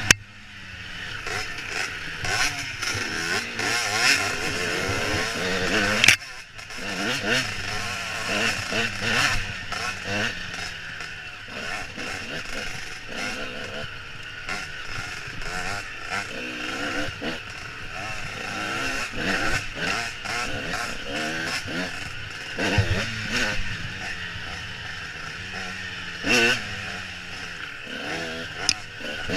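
Dirt bike engine riding a bumpy trail, its pitch rising and falling with the throttle, under steady wind rush on the helmet camera. A sharp knock about six seconds in, with the engine cutting back sharply.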